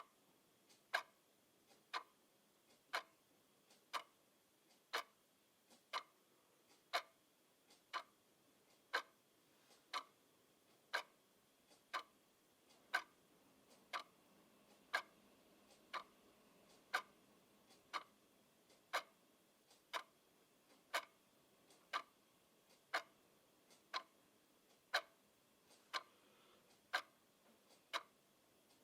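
Clock ticking steadily, about one tick a second, the ticks alternating slightly louder and softer in a tick-tock pattern.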